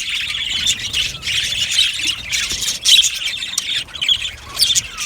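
A colony of budgerigars chirping, warbling and squawking all at once in an aviary, a dense, continuous chatter of many overlapping calls.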